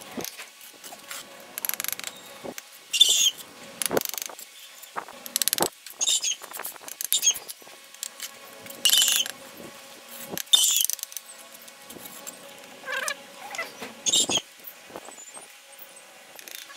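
Steel brick trowel scraping and spreading cement mortar over red bricks, with sharp knocks as bricks are set and tapped into place. The scrapes and knocks come irregularly, one every second or two.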